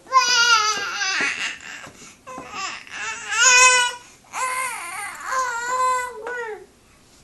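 Nine-month-old baby making a silly drawn-out vocal sound: three long, high-pitched, wavering calls of about two seconds each.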